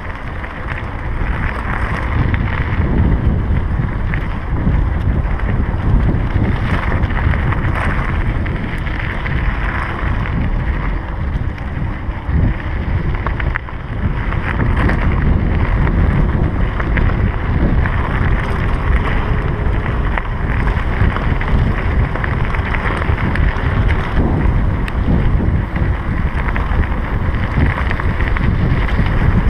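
Mountain bike rolling fast down a gravel track: heavy wind rush on the microphone over the rumble of tyres on loose gravel, with scattered small rattles and clicks.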